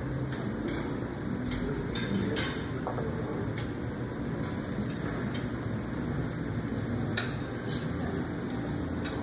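Buffet restaurant background: a steady hiss and murmur with dishes and cutlery clinking now and then.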